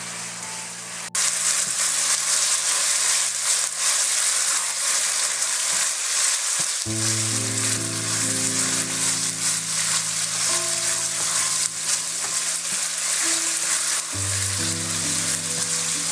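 Diced chicken breast sizzling in sauce in a nonstick wok while being stirred with a spatula; the sizzle jumps louder about a second in and stays strong. Soft background music plays underneath.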